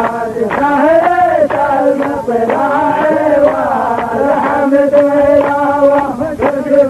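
Male chanting of a line of Bedouin mawwal poetry, drawn out in long held notes that waver and bend, with a few sharp beats through it.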